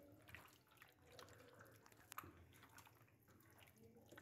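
Faint wet squelching and small clicks of hands mixing raw chicken pieces into a cream marinade in a bowl, with one sharper tick about two seconds in.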